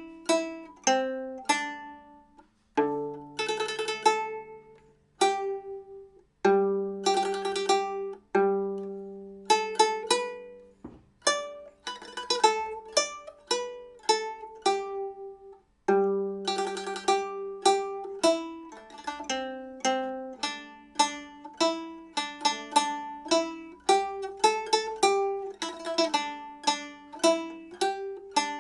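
Nanguan pipa with nylon strings and ox-bone frets played solo: a slow melody of single plucked notes, each ringing and fading, with a few longer notes sustained by quick repeated plucking. It is a test-play of the old instrument after its frets were reset and it was retuned.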